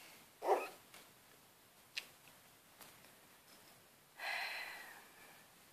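A Shetland sheepdog puppy and a cat squaring off: a short call about half a second in, a sharp click near two seconds, and a breathy, noisy sound lasting about a second a little after four seconds.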